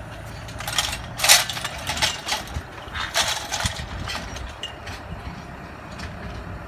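Tractor engine running steadily at low revs, with several short hissing bursts in the first four seconds as the hydraulic bale-loader arm swings out.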